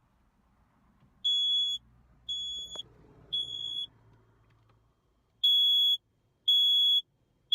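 Smoke detector alarm going off, sounding high-pitched beeps in the three-beep pattern: three beeps, a pause, then three more, set off by smoke in the car.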